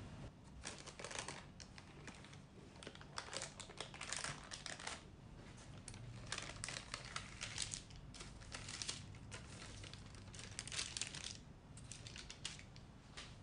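Baking parchment paper crinkling in irregular bursts as hands lift a loaf cake out of its tin and fold the paper open.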